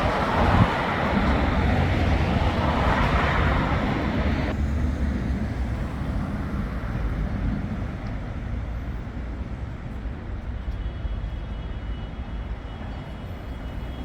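City road traffic: loud, close traffic noise that drops suddenly about four and a half seconds in to a quieter, steady low rumble of traffic that slowly fades.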